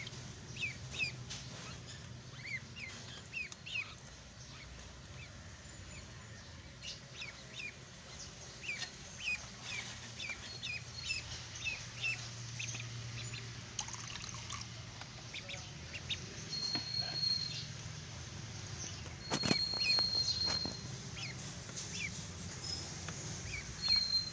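Ducklings peeping: a steady run of short, high, downward chirps, several a second. Two sharp knocks come about three-quarters of the way through.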